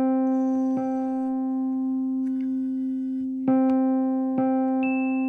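Computer speakers holding one steady electronic tone that does not fade, re-struck with a click three times, then higher notes joining one by one near the end. The sound of a struggling computer's music playback stuck on a note.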